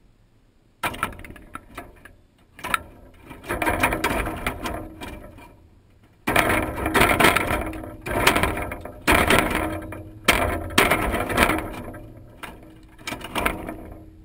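A blue jay on a wire-coil peanut feeder, jostling it as it grabs peanuts in the shell: a series of sharp metallic clattering and rattling bursts from the feeder and peanuts, each dying away over a second or so.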